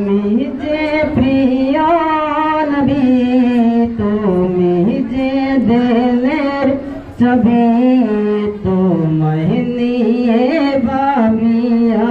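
A man singing solo and unaccompanied into a handheld microphone. He holds long notes whose pitch bends and wavers, with brief breaks for breath.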